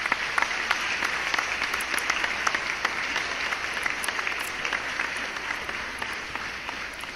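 Applause from a crowd, many hands clapping in a dense patter. It holds steady, then fades away near the end.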